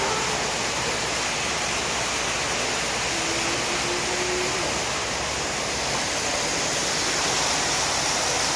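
Artificial waterfall in an alligator pool enclosure: water pouring down a rock wall and splashing into the pool in a steady rush.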